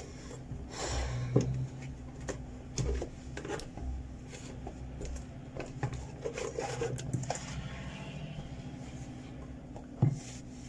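A cloth rubbing over a plastic blender base as it is wiped dry, with light knocks and clatters as the blender is turned and set down, and a sharper knock about ten seconds in. A low steady hum runs underneath.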